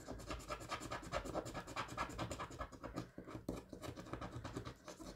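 Rapid, repeated scratching strokes of a scratch-off field on a paper challenge card being rubbed free.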